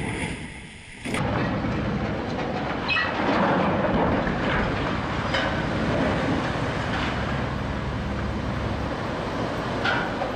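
Cargo ship launched sideways into the water: a steady rumble and rush as the hull slides off the ways and plunges in, throwing up spray, with a few short sharp cracks on top. The rumble starts abruptly about a second in.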